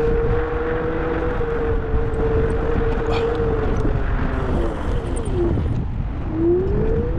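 Steady motor whine over low road-and-wind rumble from a moving vehicle. The pitch drops about five seconds in as it slows, then climbs again as it speeds back up.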